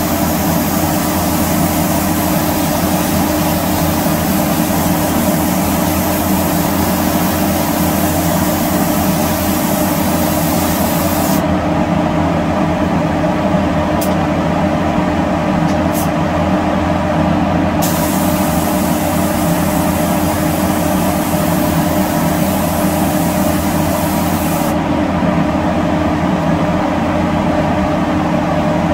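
Spray gun hissing as it sprays spray-chrome chemicals onto a metal bumper overrider. The hiss stops twice, once near the middle for about six seconds and again near the end, over a steady machine drone with a low hum that runs on without a break.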